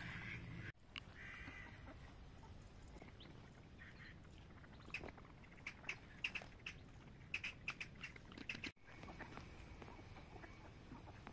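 Mallard ducks calling: a scattered run of short, sharp quacks over a few seconds in the middle, over a faint steady outdoor hiss.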